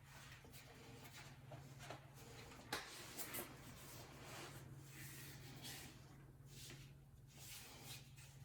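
Faint scraping and rubbing with a few light clicks near the middle, over a low steady hum.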